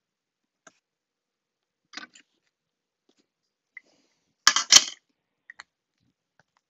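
A steel ruler clattering down onto a glass mirror tile: two quick sharp knocks about two-thirds of the way through, with a few faint clicks and taps of handling before and after.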